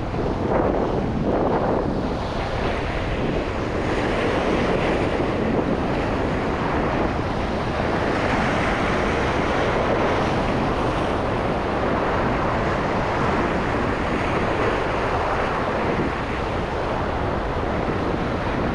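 Ocean waves breaking and washing over a rock ledge, surging every few seconds, with wind buffeting the microphone.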